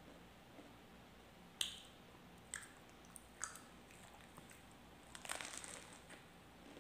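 Crusty bread-roll crust crackling as it is pulled at and bitten into: a few sharp, separate crackles, then a longer burst of crunching about five seconds in.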